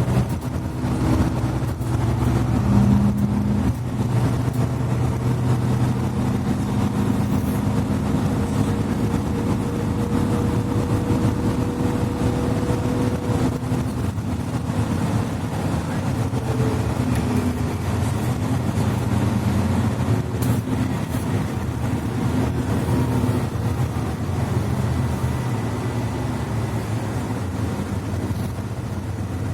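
Interior sound of a Mercedes-Benz Citaro C2 articulated bus under way, its diesel engine and Voith automatic gearbox running steadily. A thin whine sits over the engine hum and fades out about halfway through.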